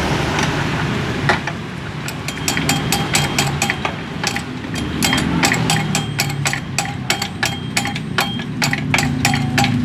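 Repeated sharp metallic clicks and taps, some briefly ringing, from hand tools working a homemade bolt-and-bearing puller to push out a piston pin seized from oil starvation. They start about two seconds in and come irregularly, two to four a second, over a steady low hum.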